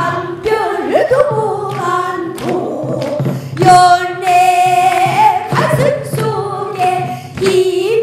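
A woman singing in Korean pansori style into a microphone, her voice bending and wavering between notes, with one long held note around the middle.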